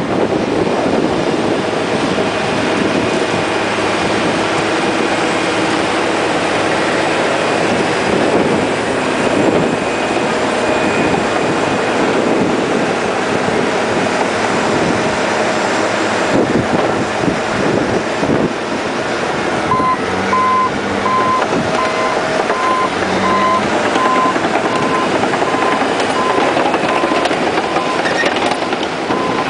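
Caterpillar D8N bulldozer's diesel engine running hard under load while pushing dirt. About two-thirds of the way in its reversing alarm starts, a regular beeping at one pitch, as the dozer backs up.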